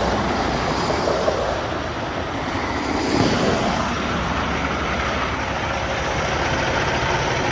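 Steady road noise of heavy trucks and traffic driving past close by, swelling a little about three seconds in.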